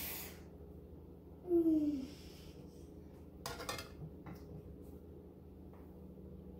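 Metal kitchen utensils clinking and scraping on a ceramic plate as marinara is ladled over spaghetti and a breaded chicken cutlet is set on top with a fork, with a short clatter about three and a half seconds in. A brief falling tone about one and a half seconds in is the loudest sound, over a steady low hum.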